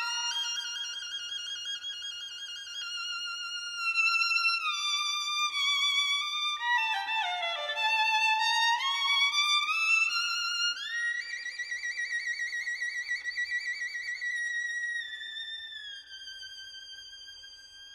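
Violin playing a slow melody of long held notes with a wide vibrato. About seven seconds in it plays a quick falling run, near eleven seconds it slides upward, and then it fades as the phrase ends.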